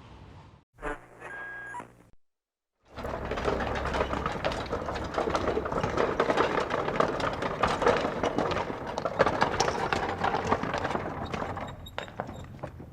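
Horse-drawn carriage rattling and clattering: a dense run of quick metallic clicks and knocks from wheels and chains. It starts after a short silence and thins to scattered clicks near the end.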